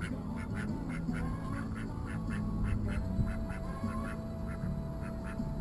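Ducks quacking in a quick repeated series, about four calls a second, over a low steady hum.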